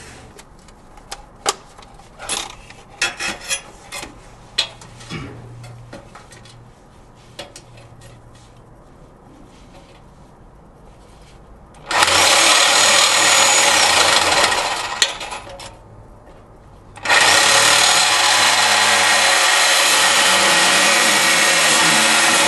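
Corded reciprocating saw cutting through the exhaust pipe, in two loud runs: one about twelve seconds in lasting a couple of seconds, and one from about seventeen seconds on. Before the cutting there are scattered clicks and knocks as the saw is set in place.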